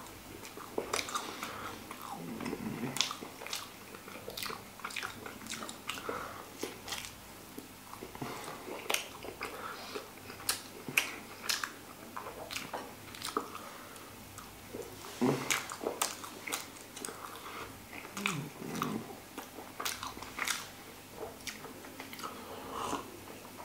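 A person biting and chewing pizza, with irregular sharp clicking mouth sounds.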